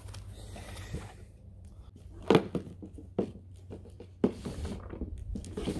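Cups being set down and moved on a plastic aerobic step platform: a few light knocks about a second apart.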